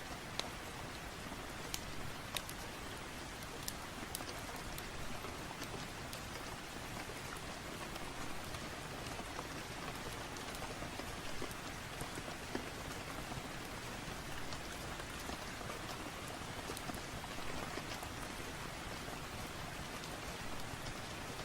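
Steady rain ambience, with scattered short sharp clicks.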